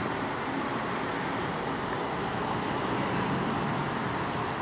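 Steady rumble of distant city traffic, even and unbroken, with no thunder or other sudden sound.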